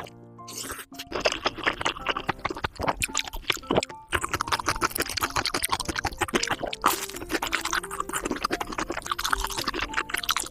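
Close-miked mouth sounds of eating jjajangmyeon (noodles in black bean sauce): wet chewing and slurping, a dense run of small sticky clicks with brief pauses near the start and about four seconds in.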